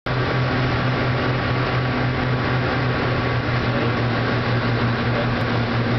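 Piper Seneca III's twin piston engines and propellers droning steadily in the cabin on final approach to land, a low hum with a slight regular pulsing.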